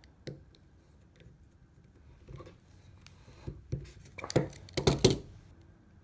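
Hand crimping tool crimping a terminal pin onto a wire: faint handling clicks, then a cluster of sharp metal clicks and clacks about four to five seconds in as the tool's jaws are worked.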